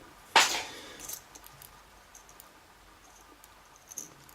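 Small metal lock parts being handled during disassembly: a short scraping rush about half a second in, then faint light clicks, with one slightly louder click near the end.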